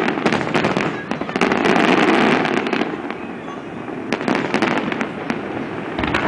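Fireworks display: aerial shells bursting in quick succession, a dense wash of bangs and crackles. It eases off about three seconds in, with scattered sharp cracks carrying on.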